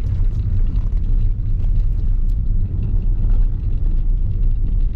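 Steady low rumble of a car driving on a rough, patched road, heard from inside the cabin.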